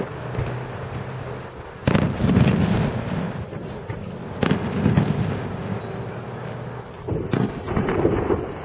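Aerial fireworks shells bursting: a sharp crack at the start, then heavy booms about two, four and a half and seven seconds in, each followed by a rumbling echo and crackle.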